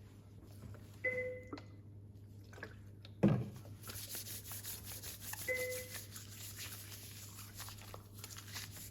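Electronic beep from neonatal-unit equipment, sounding twice about four and a half seconds apart, each a short steady tone. A sharp knock comes about three seconds in, followed by rustling handling noise over a steady hum.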